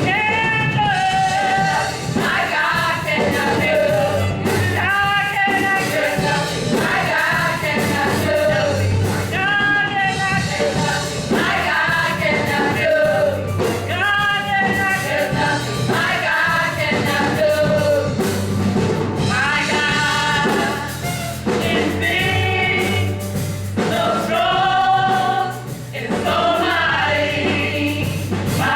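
Gospel praise music with group singing over a steady band accompaniment.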